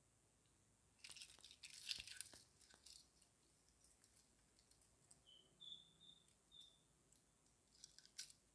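Quiet metal keys, a carabiner and a KeySmart aluminium key organizer clinking and clicking as they are handled: a cluster of jingles a second or two in, scattered clicks after, and more clicks near the end.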